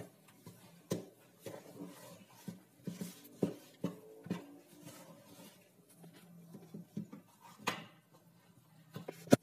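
Hands kneading soft, sticky dough in a plastic bowl: irregular soft squishes and pats, with a few sharp knocks, the loudest one near the end.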